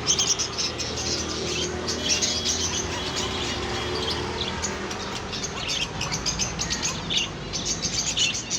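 Several small birds chirping, many short calls overlapping, with a few brief held whistled notes a couple of seconds in.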